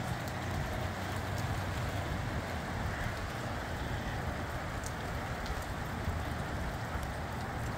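Rain falling in gusty wind: a steady hiss with scattered drop ticks over an uneven low rumble of wind buffeting the microphone.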